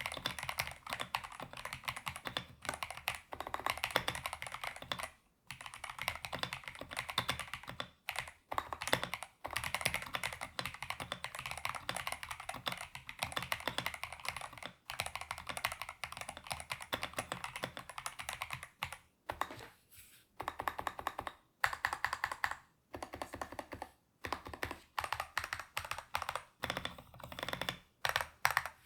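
Fast, continuous typing on an EPOMAKER Shadow-X gasket-mount mechanical keyboard with stock EPOMAKER Flamingo linear switches, a PC plate, full foam and PBT XDA keycaps: rapid key clacks broken by a few short pauses, with slower, separate keystrokes near the end.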